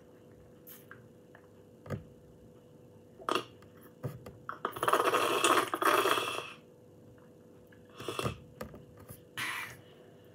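Yogurt being sucked noisily out of a plastic squeezy pouch through its spout: one loud slurp lasting about two seconds in the middle, with a few short clicks before and after.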